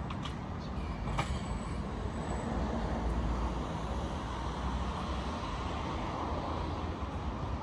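Steady low rumble of vehicle noise, swelling slightly through the middle, with two short clicks near the start.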